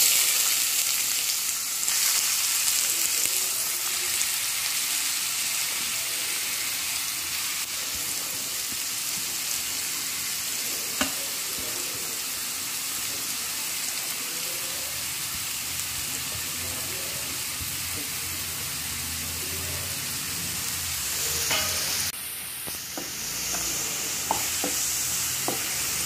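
Chopped onions, ginger and green chillies sizzling in hot oil in a non-stick kadai: the frying hiss starts suddenly as they drop into the oil and stays steady. Near the end a wooden spatula stirs them, with a few light knocks against the pan.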